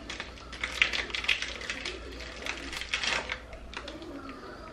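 Crinkly plastic packaging and hands peeling apart raw salt pork slices, a quick run of small crackles and clicks that thins out after about three seconds.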